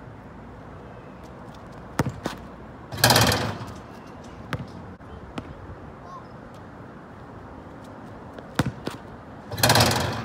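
A basketball bouncing on an asphalt court, a few sharp single bounces. There are two louder clattering bangs, about three seconds in and near the end; the last comes as the ball is tossed up off the backboard for a dunk.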